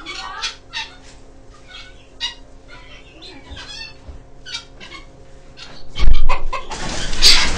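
Chickens clucking in a coop, with scattered short calls. About six seconds in comes a loud thump, after which the calls grow louder and busier.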